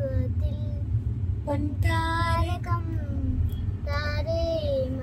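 A young boy singing short phrases of a melody with held, gliding notes, over a steady low hum of the car cabin.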